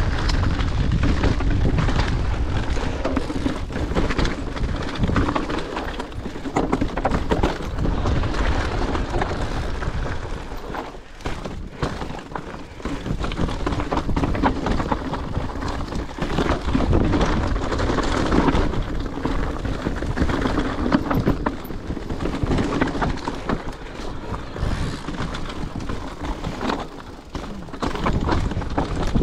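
Mountain bike riding fast over rocky singletrack: tyres crunching and clattering over loose stones, with frequent knocks and rattles from the frame, chain and suspension, and a low rumble of wind buffeting the helmet microphone. It eases off briefly twice.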